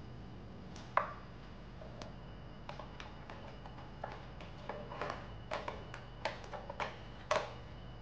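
Scattered sharp clicks and taps from a USB cable and its plug being handled and pushed into a keyboard's USB-C port, with a louder click about a second in and another near the end.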